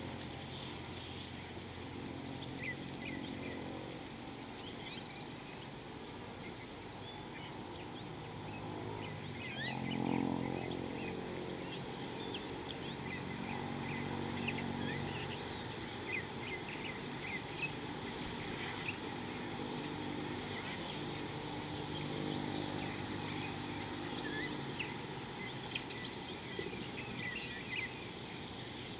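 Wild outdoor ambience: many small birds chirping in short, quick rising notes, with a few repeated higher calls, over a steady low hum. About ten seconds in there is a brief, louder low sound.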